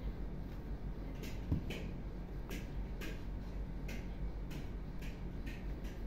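A steady low hum with about ten faint, irregular clicks and ticks scattered over it.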